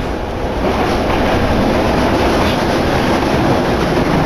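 Yokohama Municipal Subway Blue Line train running through a tunnel, heard from inside the car: a steady rumble of wheels on the rails that grows a little louder over the first second.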